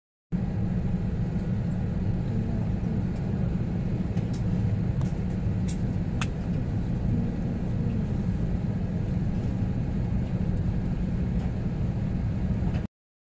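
Steady low rumble of an airliner cabin, heard from a passenger seat, with a few faint clicks about halfway through.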